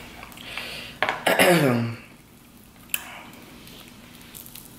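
A man's short wordless vocal sound about a second in, starting noisy and sliding down in pitch. It is followed by a single sharp click and faint crackling as fried soft-shell crab is pulled apart by hand over a plate.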